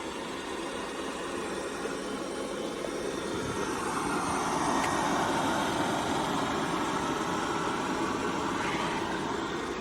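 Ultenic D10 robot vacuum cleaner running with a steady motor whir, getting louder in the middle and easing off slightly toward the end.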